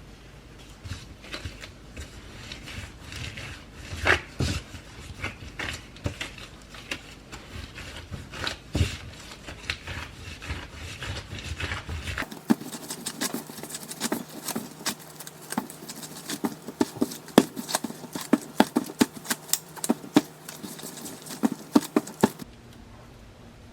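A string of light clicks, taps and knocks of small objects being handled, thickening into rapid clicking in the second half.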